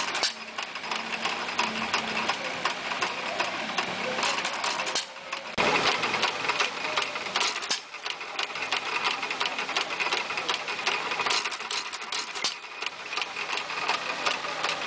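Jaeger hit-and-miss engine running, a steady fast clicking of its exposed valve gear and igniter, firing only every couple of revolutions and coasting between.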